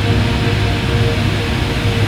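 Super-slow, time-stretched heavy-shoegaze song as an ambient wall of sound: a steady, dense wash with a low sustained hum and a held mid note, no beat or attack.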